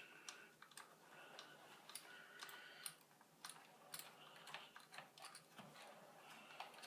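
Faint, irregular clicking and ticking of small screws and a screwdriver as screws are driven back into a laptop's bottom panel.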